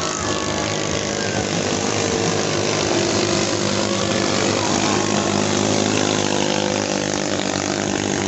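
Small 220cc racing-boat engines running hard, several at once at different pitches, the pitch rising and falling a little.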